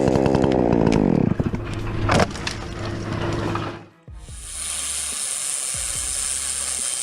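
A chainsaw running at full speed, its pitch dropping as it winds down in the first second or so, with a sharp crack a couple of seconds in. After a brief break near the middle, a steady hiss.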